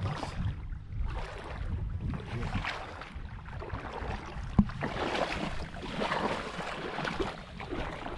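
Legs wading through shallow seawater, making irregular sloshing swishes with each step, with a single sharp tap about halfway through.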